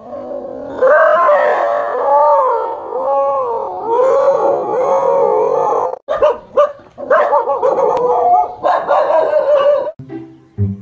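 A dog howling and whining in long cries whose pitch wavers up and down. The howl breaks off sharply about six seconds in and resumes in shorter cries, and music with plucked notes takes over near the end.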